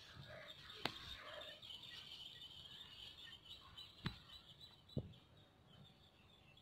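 Faint background chorus of birds chirping and twittering, with three sharp clicks about one, four and five seconds in.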